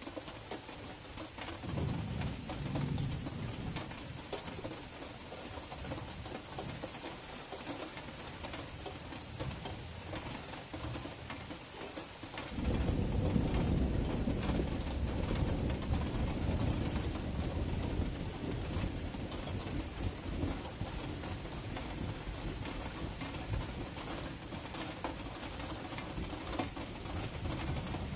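Thunderstorm: steady rain hiss with thunder. A low rumble rises about two seconds in, and a louder, long rumble of thunder sets in suddenly about halfway through and carries on.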